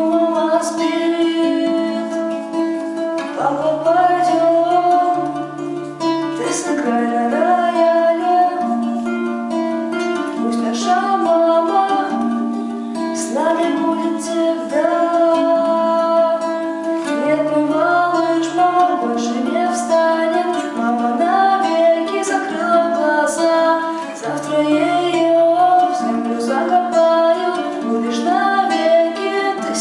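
A slow, sad song on plucked acoustic guitar, with a voice singing over it.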